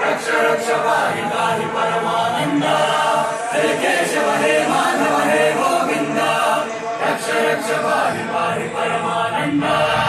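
A group of voices singing a chant together, with music behind it.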